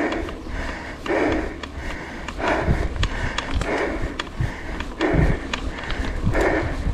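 A mountain biker breathing hard, one loud breath about every 1.3 seconds, over small clicks and rattles and a low rumble.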